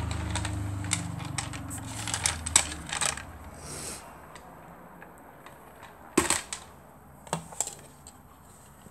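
Small hard plastic toy figures and parts clicking and knocking as they are handled. There is a run of quick clicks in the first three seconds, one louder knock about six seconds in, and two more clicks soon after. A low rumble fades out over the first three seconds or so.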